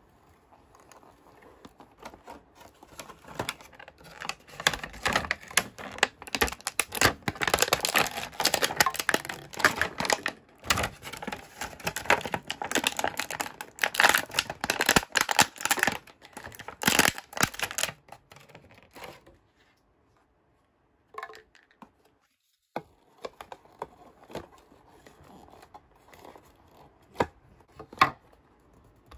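Packaging being handled during an unboxing: a long stretch of dense crinkling and tearing, then only a few scattered light taps and clicks, one sharper near the end.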